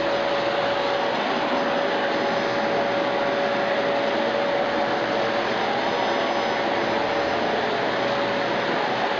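Electrolux Ergolite vacuum cleaner running steadily: an even rush of air with a thin whine in it.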